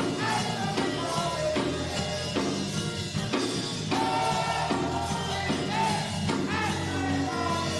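Church worship music: singing over a drum kit and other instruments, with a steady beat.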